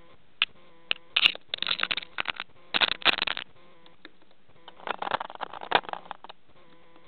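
Budgerigar's beak pecking, nibbling and scratching at the camera right against the microphone: sharp clicks and short bursts of scraping in several bouts, over a faint steady hum.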